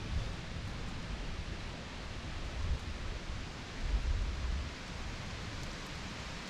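Steady outdoor hiss with low rumbles of wind buffeting the microphone, the strongest gust about four seconds in.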